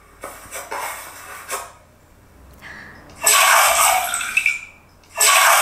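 Wet squelching of slime squeezed in the hands, in two loud spells about three and five seconds in, after a fainter stretch of soft crackly handling.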